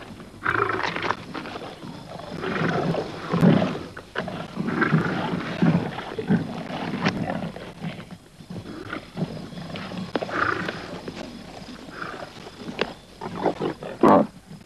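Lions growling and snarling while feeding on a carcass, in uneven bursts, with the cubs squabbling over scraps.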